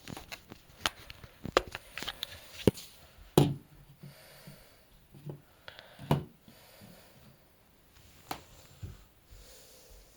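Irregular clicks and knocks of objects being handled, about a dozen in all, the loudest about three and a half seconds in.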